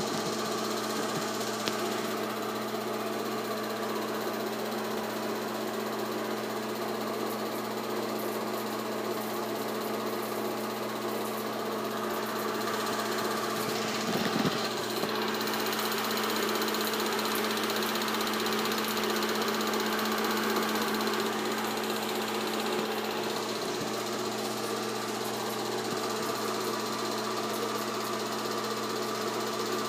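8mm film projector running: a steady mechanical hum with a strong low tone and many steady overtones, with a brief knock about halfway through.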